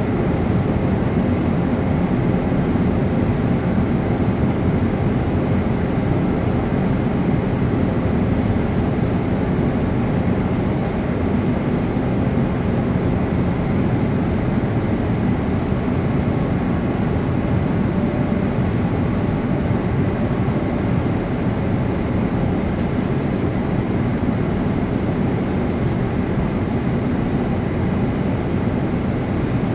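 Steady cabin noise inside a Boeing 787-9 airliner on approach: the even rumble of its Rolls-Royce Trent 1000 jet engines and the airflow, mostly low in pitch, with a faint steady tone above it.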